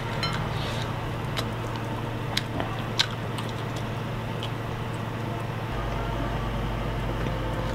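A person chewing fried duck close to the microphone while tearing the meat off the bone by hand, with a few short sharp mouth clicks and smacks, over a steady low hum.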